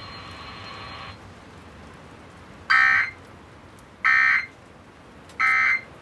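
Emergency Alert System end-of-message data bursts playing from an FM stereo receiver: three short, buzzy digital tone bursts about a second and a half apart. They signal the end of the severe thunderstorm warning.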